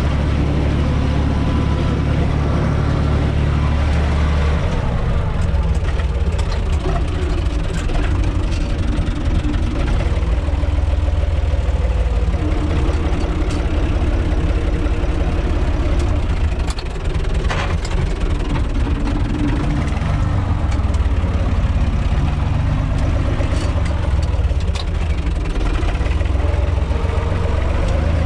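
UTB 445 tractor's four-cylinder diesel engine running under way, heard from inside the cab. Its note shifts about four seconds in, and short clicks and knocks come through now and then.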